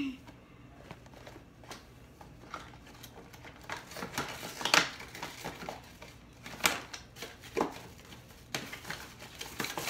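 Packaging of a rear-view-mirror phone mount being handled as its parts are taken out of the cardboard box: scattered clicks, taps and plastic rustling, the sharpest about halfway through.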